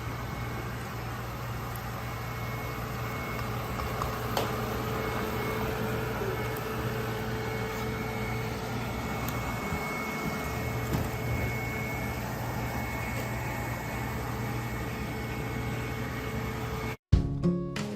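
Robot vacuum cleaner running: a steady motor whir with a low hum and a thin high whine. It cuts off suddenly near the end, and strummed acoustic guitar music begins.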